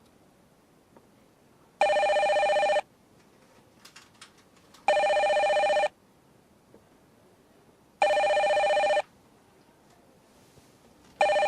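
Telephone ringing with an electronic two-tone ring: three rings of about a second each, roughly every three seconds, and a fourth starting near the end.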